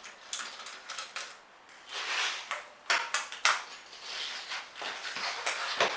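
Light clicks, knocks and clatter of hard parts being handled and set down, with rustling between the knocks.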